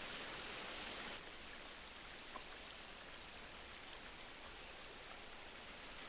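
Faint, steady rush of shallow stream water running over stones, dropping slightly in level about a second in.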